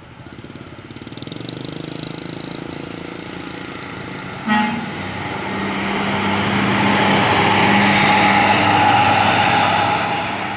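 An intercity coach's engine draws near and passes, growing louder over several seconds. A short horn toot sounds about four and a half seconds in.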